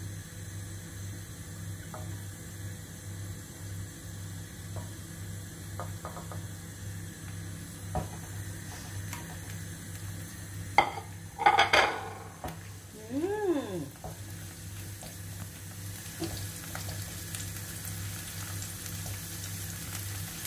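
Minced garlic in olive oil in a nonstick frying pan on a gas burner, sizzling faintly at first and building into a stronger sizzle near the end as it is stirred with a spatula. About eleven seconds in comes a brief clatter of dishes or utensils, the loudest sound, followed by a short tone that rises and falls. A low steady hum runs underneath.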